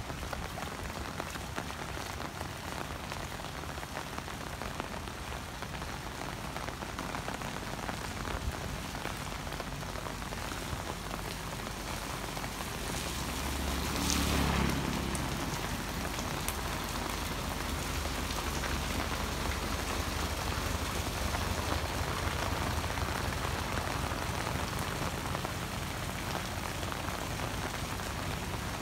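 Heavy rain falls steadily on wet pavement and puddles, a continuous even hiss. About halfway through, a motorbike passes close by, briefly louder, with a low rumble that swells and fades.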